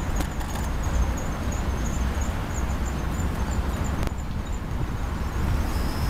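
Insects chirping high and short, about three chirps a second, stopping about four and a half seconds in; a steady high trill from another insect starts just before the end. Under them runs a steady low rumble.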